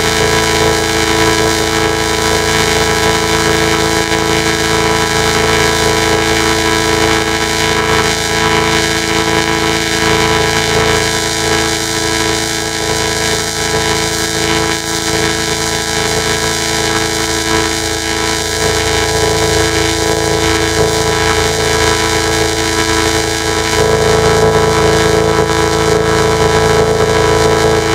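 McDonald's ad-outro jingle run through a heavy distorting audio effect, smeared into a loud, harsh drone of many held tones over noise. About 24 seconds in the sound shifts and gets a little louder.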